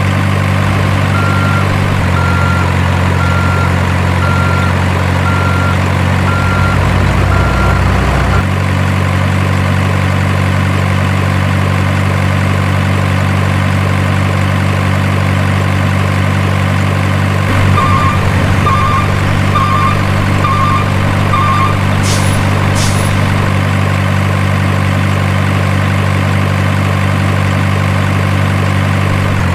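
Simulated diesel truck engine idling steadily, an electronic RC truck engine sound with an unchanging pitch. Evenly spaced reversing beeps run through the first eight seconds or so. A second run of short double beeps comes later, followed by two short sharp air-brake hisses.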